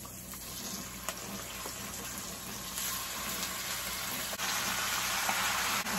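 Raw chicken wings sizzling as they are dropped into hot oil in a sauté pan, the frying hiss growing louder as more pieces go in, with a few faint ticks.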